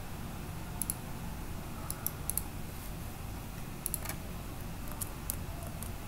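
Computer mouse clicking about ten times, singly and in quick pairs, over a steady low hum.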